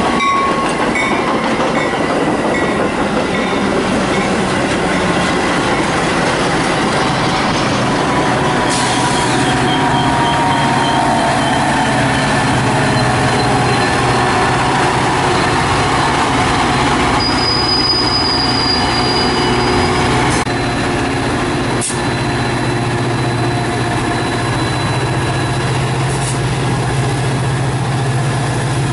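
Metra bilevel commuter train rolling past and braking, wheels and brakes squealing with falling tones as it slows and a high brake squeal shortly before it stops. About two-thirds through it comes to a stand, and its F40PH diesel locomotive's engine idles with a steady low hum.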